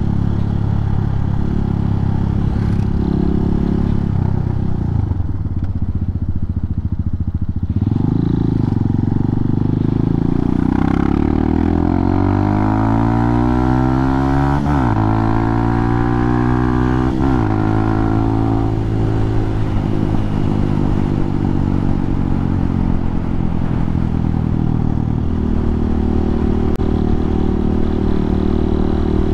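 Hawk 250 dual-sport motorcycle's single-cylinder four-stroke engine running low at first, then revving up from about eight seconds in, with two upshifts about halfway through that drop the pitch suddenly. It then holds a steady cruise.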